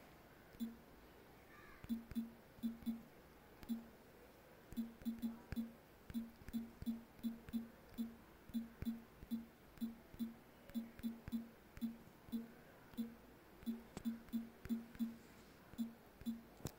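Smartphone on-screen keyboard giving short feedback pulses with each key tap as a message is typed: faint, low, brief buzzes at one steady pitch, coming irregularly at about two or three a second.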